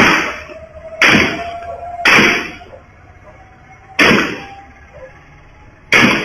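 Gunshots from an assault rifle picked up by a CCTV camera's microphone: five sharp reports, about a second apart with a two-second gap before the last, each with a short ringing tail.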